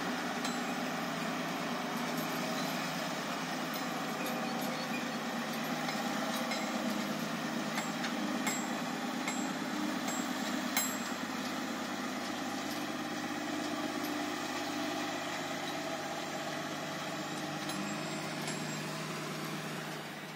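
A motor vehicle's engine running steadily, with a couple of faint clicks about halfway through.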